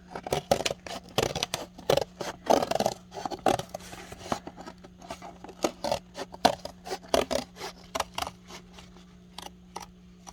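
Scissors cutting around a paper plate: a run of irregular snips, close together at first and sparser in the second half.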